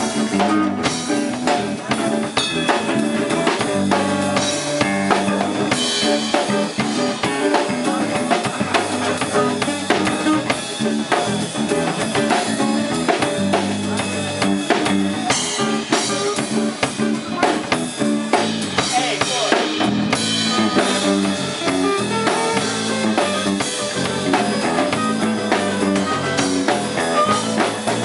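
Live band playing an instrumental passage without vocals: a drum kit with kick and snare keeping a steady beat under bass guitar and guitars.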